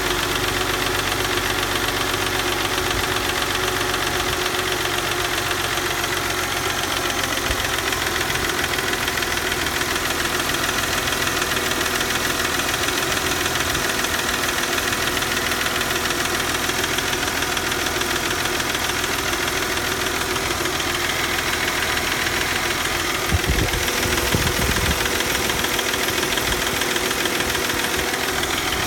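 Mercedes C240's M112 V6 engine idling steadily with a knocking sound, which appeared after the engine would not start without pressing the gas pedal. A few brief low thumps about two-thirds of the way through.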